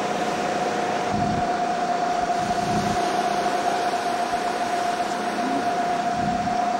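Steel schooner's engine running steadily under way, a constant drone with a steady high hum over it. Wind buffets the microphone in short low gusts about a second in, near three seconds and near six seconds.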